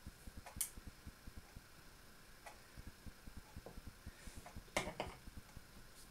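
Knife poking and scoring the top of a raw dough parcel on an electric cooker's cooking plate: quiet, irregular soft knocks with a few sharp clicks, one about half a second in and a louder cluster near five seconds in.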